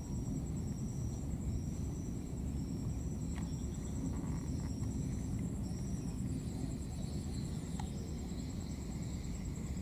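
Outdoor insect ambience: a steady high trill, with a short high chirp repeating about every two-thirds of a second until about six seconds in, over a constant low rumble.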